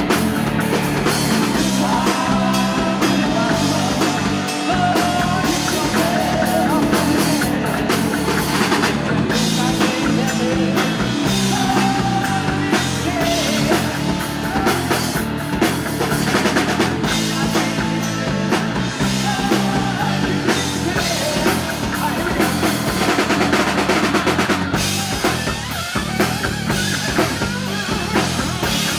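Live rock band playing loud and steady through stage amplifiers: electric guitar, bass guitar and drum kit.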